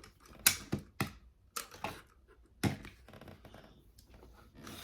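Sharp, irregular clicks and taps of small plastic toy parts being handled and pushed into place, about six in all.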